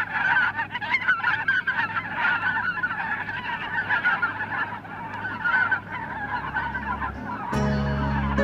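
A flock of geese honking, many overlapping calls at once. Sustained music tones come in near the end.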